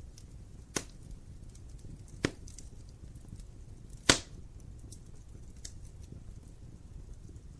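Wood logs burning in a fireplace: a low steady rumble of flame with many faint crackles and three sharp pops of the wood, the loudest about four seconds in.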